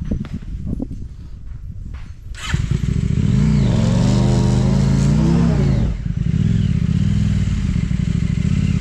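Motorcycle engine running low and uneven, then revved hard from about two and a half seconds in, its pitch rising and falling, dipping briefly near six seconds and then held high and steady.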